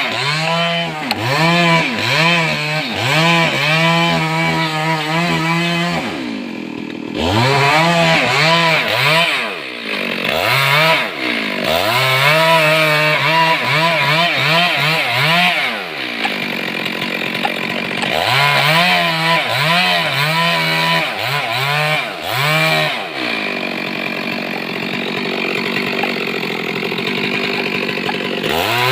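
Stihl MS 382 two-stroke chainsaw revving hard over and over, the throttle blipped up and down many times in quick succession. It is held high for a few seconds at a time and drops back toward idle twice, about six and sixteen seconds in.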